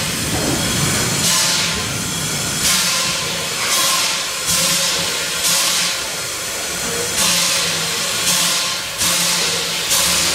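Small 0-4-2 steam locomotive Kilrie chuffing slowly as it works along: about eight sharp exhaust beats of hissing steam at uneven intervals of roughly a second.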